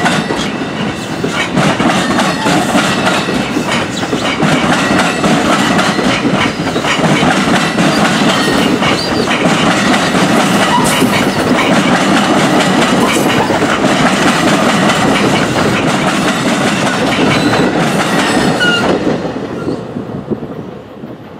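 NJ Transit Multilevel double-deck coaches rolling past, the wheels clattering over rail joints with a steady rumble and brief high squeals here and there. The sound fades away near the end as the last car goes by.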